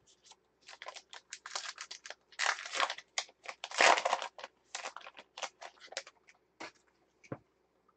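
A 2016 Gypsy Queen baseball card pack's wrapper being torn open and crinkled in the hands: a quick run of sharp crackles, loudest around the middle.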